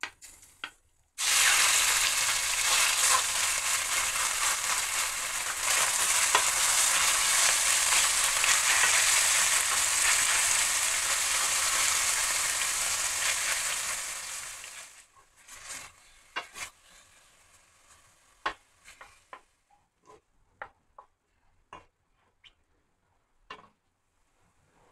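Minced chicken sizzling loudly as it hits hot oil in a stainless steel frying pan about a second in, frying steadily before dying away after about fourteen seconds. After that, scattered light taps and scrapes of a wooden spoon stirring the mince in the pan.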